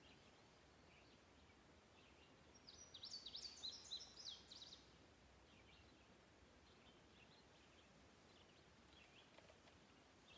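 Faint songbird calling over a near-silent background: one quick run of high, rapidly repeated falling notes about three seconds in, with scattered soft chirps the rest of the time.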